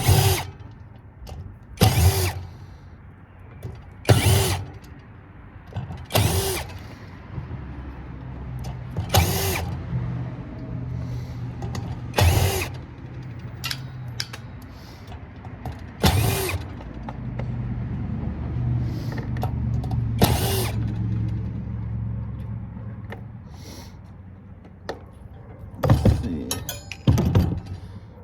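Metal pieces, copper bus bar and screws, clinking with a bright ring as they are handled and dropped, about ten sharp hits a few seconds apart. Between them a low mechanical whirring and ratcheting runs through the middle stretch as parts are unfastened.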